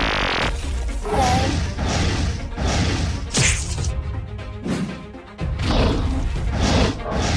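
Cartoon fight sound effects over background music: a buzzing laser-beam zap at the very start, then a rapid string of punch impacts, crashes and whooshes.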